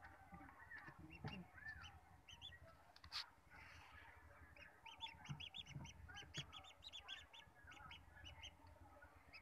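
Newly hatched ducklings peeping: many short, high calls repeated in quick runs, densest in the second half. A single sharp knock about three seconds in as a hand reaches in among them.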